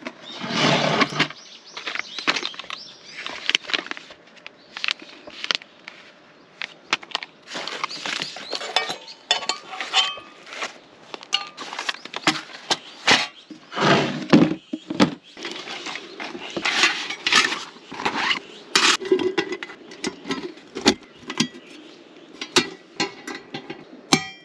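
Camping gear being handled on gravel: a wooden tabletop set down, items rummaged in a plastic crate, and a small folding table with wire legs opened out, giving many scattered knocks, clinks and rustles. A low steady hum sits under the later part.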